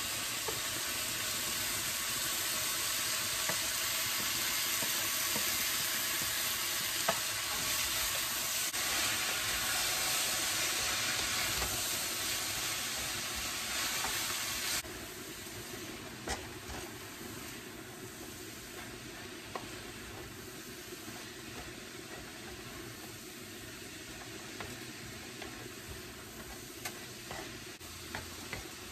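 Shredded cabbage and chopped chicken sizzling in a hot wok as they are stir-fried with a wooden spoon, with occasional scrapes and taps of the spoon on the pan; the freshly added cabbage is cooking down. The sizzle is loud for the first half and drops abruptly to a softer frying sound about halfway through.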